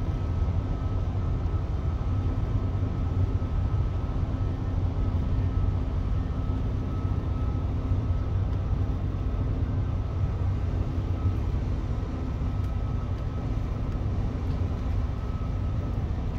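Boat engine running with a steady low drone and a faint steady whine above it.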